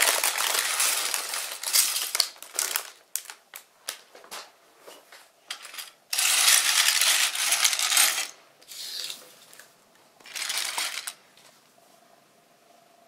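Loose plastic toy building bricks poured from a plastic bag and clattering onto a china plate, in several bursts with scattered single clicks of falling pieces between, over the crinkle of the bag. It goes quiet in the last seconds.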